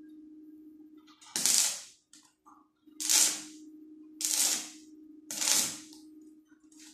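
Stick arc welder laying short tack welds on a steel door frame: four separate bursts of arc hiss, each about half a second, over a steady low hum.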